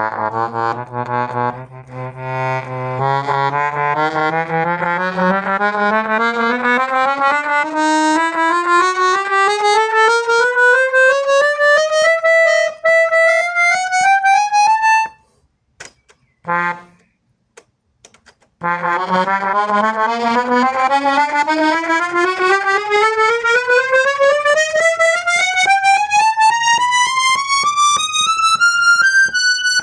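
Hohner Morino IV M accordion playing a scale that climbs one small step at a time over about three octaves. It breaks off about halfway for a few seconds with one short note, then a second rising scale starts from low down again.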